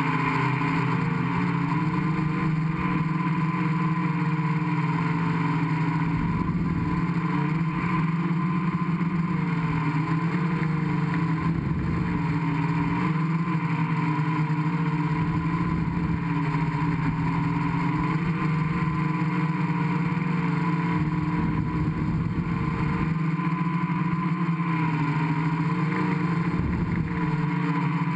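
Gaui 500X quadcopter's electric motors and propellers running steadily, heard close up from on board, with the pitch wavering slightly as the throttle changes. Low rumbles of wind hit the microphone now and then.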